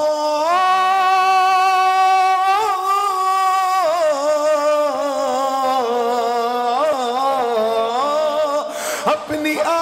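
A man singing an Urdu naat as a solo voice, drawing out long held notes with ornamented wavers and slow glides in pitch, with a brief breath about nine seconds in.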